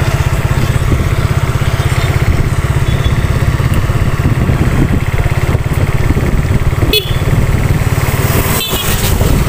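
Motorcycle running at road speed, with wind buffeting the microphone as a dense, fluttering low rumble.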